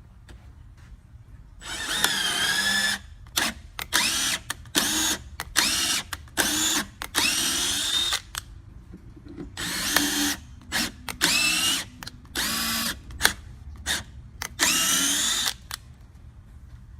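Power drill run in about ten short bursts, its motor whine wavering up and down in pitch with the trigger, over a steady low hum.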